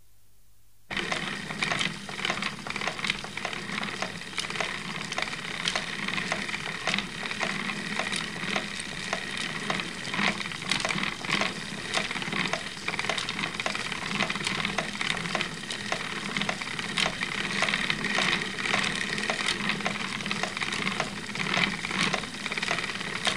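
Wooden spinning wheel turning as wool is spun: a steady whirring with a rapid, irregular clatter of clicks, starting abruptly about a second in.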